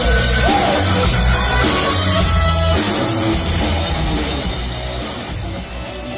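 Band music with a drum kit and bass keeping a steady beat, growing gradually quieter over the last couple of seconds.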